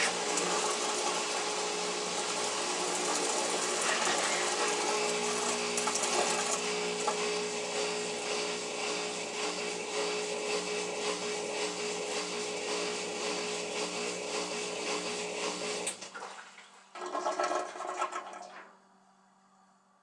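Kenmore Series 500 top-load high-efficiency washing machine running a normal wash cycle: a loud steady whirring with a hum underneath. It cuts off about 16 seconds in, comes back briefly a second later, then stops.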